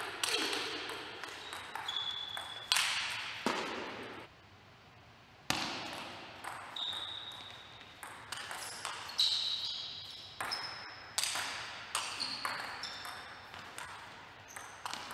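Table tennis rally: the celluloid-type ball striking paddles and table in a quick back-and-forth, sharp clicks about two a second, many with a short high ping. The hits stop for about a second a little after four seconds in, then start again.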